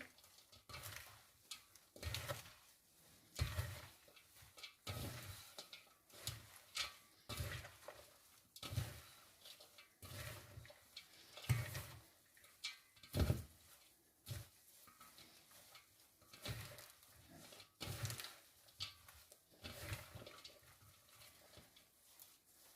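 Pasta salad being mixed by hand in a bowl: faint, irregular squishing and rustling strokes, about one every second, with a few slightly louder ones near the middle.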